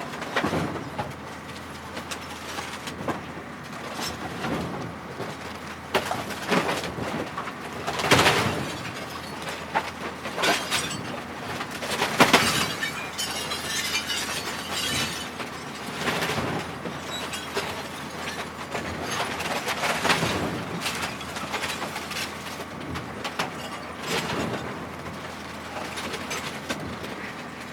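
Plastic and glass appliances being smashed: a string of irregular crashes, plastic cracking and glass shattering, the loudest about eight and twelve seconds in, with glass fragments tinkling just after the second.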